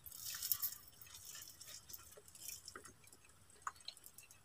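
Faint crackling and scattered light clicks of crispy fried daing na bangus (split, dried milkfish) being picked apart by hand on a foam plate, busiest in the first second, with a sharper click near the end.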